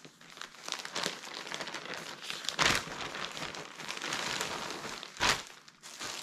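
FIGS plastic poly mailer bag crinkling as it is handled and opened, with two louder crackles about two and a half and five seconds in.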